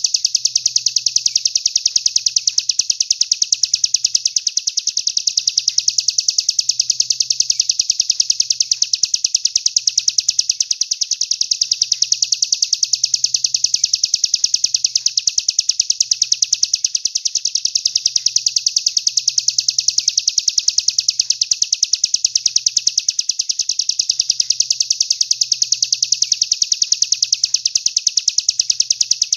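A songbird singing a high, very fast, rattling trill in long unbroken bouts, each about six seconds long with a brief break between. This is the kind of phrase used to tutor competition songbirds.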